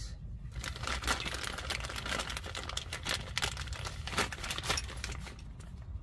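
Clear plastic parts bag crinkling, in an irregular run of crackles, as hands rummage in it and pull out two small rubber hoses.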